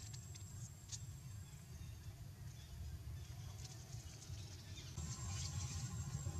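Baby macaque sucking milk through a straw from a carton: faint, irregular slurping clicks over a low rumble. A thin steady high tone drops out early and returns about five seconds in.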